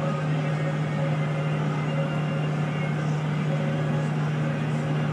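Steady road and engine noise inside a car cruising at highway speed, with a constant low hum under it.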